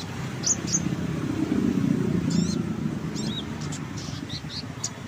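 A konin songbird calling with short, high chirps that slide down in pitch, given in quick groups of two or three, over a low rumble that swells in the middle.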